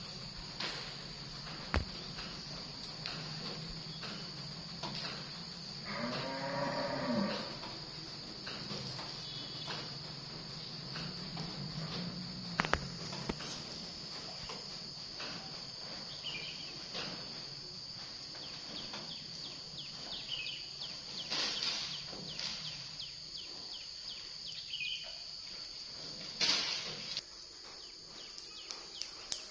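A steady high-pitched hum and a low hum, with a long low call that rises and falls in pitch about six seconds in, a fainter one around twelve seconds, and scattered light taps and clicks.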